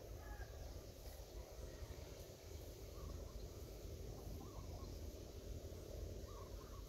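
Rural outdoor ambience: a steady low rumble with faint bird calls, likely farmyard fowl, chirping a few times. A sharp click comes at the very end.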